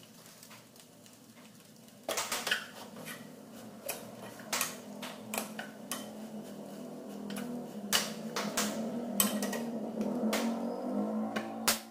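Metal spoon stirring pasta in a saucepan, clinking and scraping against the pan's sides and rim in quick irregular knocks that start about two seconds in.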